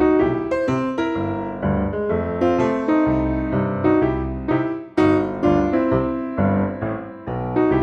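Background music played on piano: a melody of struck notes over chords.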